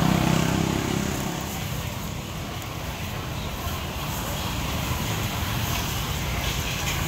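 A motorcycle going past on the street, its engine hum loudest at the start and fading within the first second or so, followed by steady street traffic noise.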